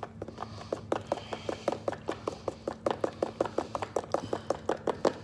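A utensil beating a thick beer batter in a mixing bowl, knocking against the bowl in a fast, even rhythm of about six strokes a second that grows louder toward the end.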